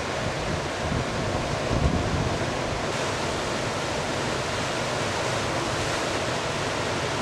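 Steady wash of ocean surf breaking and churning, with a low rumble of wind on the microphone.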